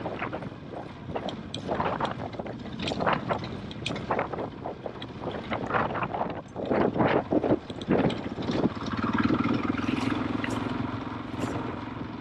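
KTM 500 EXC-F single-cylinder four-stroke trail bike riding a rough track, its engine running under irregular clattering and knocking from the bike over the stony ground. About nine seconds in the clatter eases and the engine settles to a steady note.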